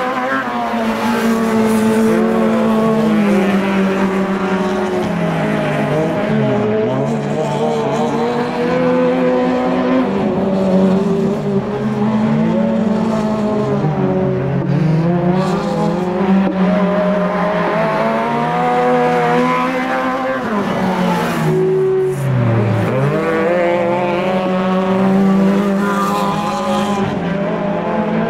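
Racing cars' engines running hard during an ice-track heat, the pitch rising under acceleration and dropping again as they lift off for the corners, over and over. Near the end there is one deep drop and climb in revs.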